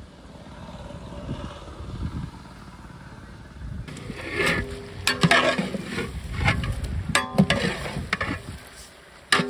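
Long metal ladle stirring mutton in a large metal cooking pot: sizzling, with repeated scrapes and clinks of metal on metal from about four seconds in, and one sharp clank near the end.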